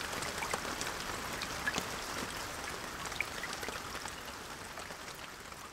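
A soft, rain-like hiss with faint scattered ticks, slowly fading out toward the end.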